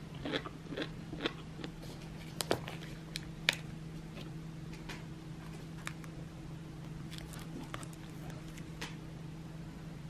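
Close-up eating sounds: clusters of small crunches and clicks in the first few seconds, then only a few scattered clicks. A steady low hum runs underneath.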